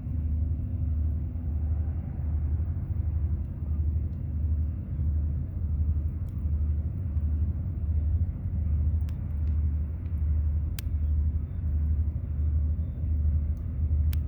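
Low diesel rumble of a towboat pushing barges on the river, throbbing evenly about one and a half times a second. A few faint pops from a small campfire come through near the end.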